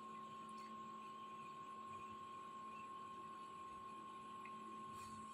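Faint steady electrical hum with a thin, constant high whine over a low hiss: room tone.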